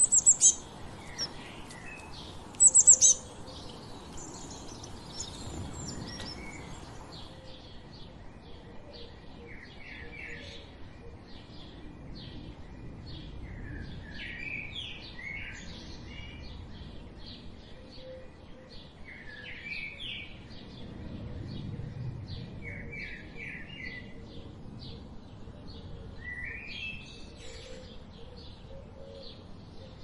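Small birds chirping: two short, loud, high-pitched calls in the first few seconds, then a steady run of quick repeated chirps with bursts of falling twittering notes.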